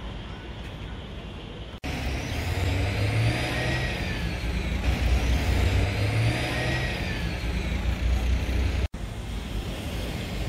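Motor vehicle traffic on a city street: a low rumble that swells for several seconds, with a faint high whine that rises and falls twice.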